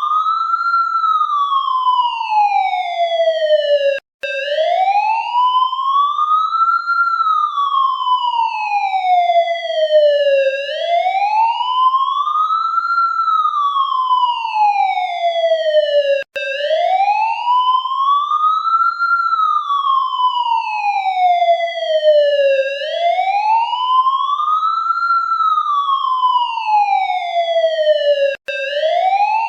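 Police siren in its wail mode, its pitch rising and falling slowly, about one full rise and fall every six seconds. The wail breaks off for a split second three times, about twelve seconds apart.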